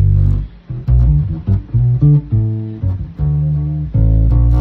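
Electric bass with a Squier Stratocaster body, Jazz Bass neck and D'Addario Chromes flatwound strings, played with neck and bridge pickups on together. It plays a finger-plucked run of about a dozen notes, then a held, ringing note from about four seconds in.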